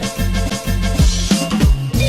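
Background music with a band beat: drum hits on a steady rhythm under bass and held pitched notes.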